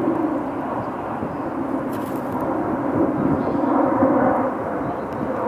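Steady low rumble of urban outdoor background noise, such as distant traffic or an aircraft overhead, with no clear single event standing out.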